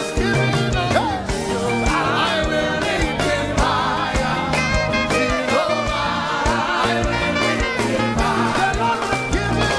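Live gospel praise music: voices singing over a full band with a steady beat.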